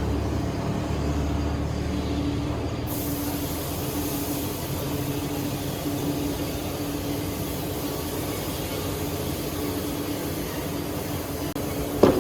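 Heavy machinery running steadily with a constant low hum and noise. It turns hissier about three seconds in, and there is a single sharp knock near the end.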